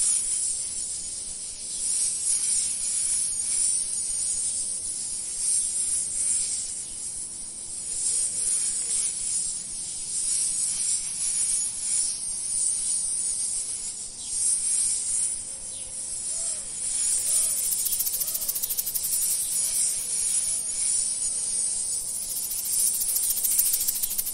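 A steady, high-pitched chorus of chirring insects, rising and falling gently in loudness.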